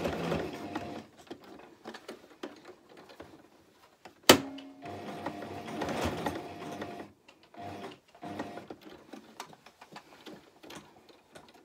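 Toyota domestic sewing machine stitching in short stop-start runs, sewing a box and a cross over the overlapped ends of the leg elastic, with small ticks in the pauses. A single sharp click about four seconds in.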